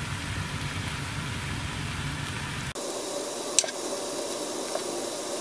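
Steady hiss of room noise whose low rumble cuts out abruptly about halfway through, with one light tap of a metal spoon against the baking dish a little after.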